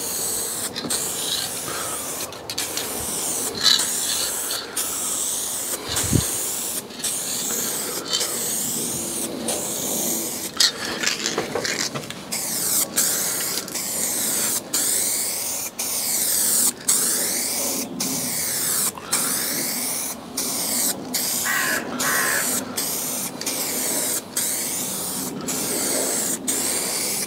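Aerosol can of car paint spraying a final coat in hissing passes, cut by brief breaks every second or so as the nozzle is let go and pressed again.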